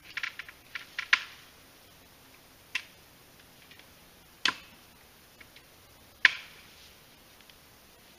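Dry twigs and sticks snapping underfoot on a forest floor: a quick cluster of cracks, then three single sharp snaps about every second and a half to two seconds.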